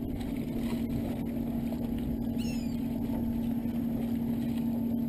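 Boat motor running at a steady idle, a low hum that holds one pitch. A brief, faint, high falling squeak about two and a half seconds in.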